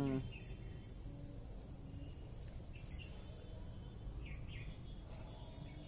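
Steady outdoor background noise with a few faint, short bird chirps, two of them close together a little past four seconds in.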